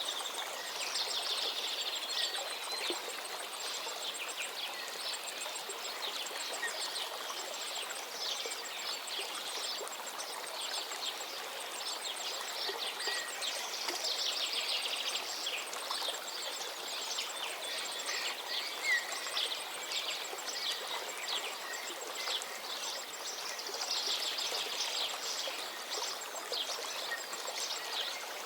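Many songbirds chirping and singing together over a steady rushing background like a stream, the song thickening in waves.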